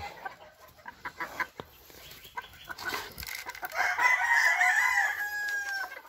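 A rooster crowing once, starting about four seconds in: a wavering opening that ends in a long held note. A few faint clicks come before it.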